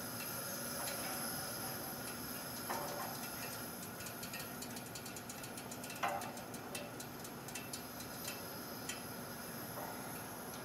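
Coleman 425 white-gas camp stove with one warmed-up burner lit, running with a steady hiss. Scattered light ticks and clicks run through it, coming thick about halfway in, with a couple of soft knocks.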